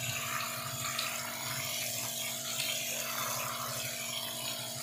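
Electric water pump running with a steady hum while its jet of water sprays and splashes against an air cooler's honeycomb cooling pad, rinsing off softened dirt.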